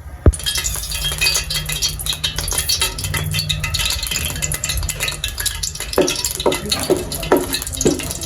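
A metal spoon stirring in a cooking pot, with clinking and scraping. There is a sharp clink just after the start, and from about six seconds in the stirring falls into regular strokes about twice a second.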